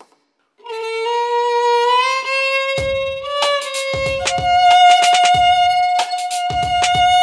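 Violin bowing long held notes, starting about half a second in: a lower note that slides slightly upward, then a higher note held from about four seconds in. Low drum thuds join about three seconds in, roughly one every second and a quarter.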